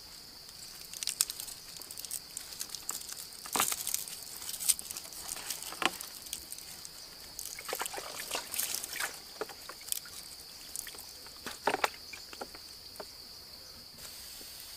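A green bamboo stick is split and worked by hand, giving irregular cracks, scrapes and rustles. A steady high insect drone runs underneath.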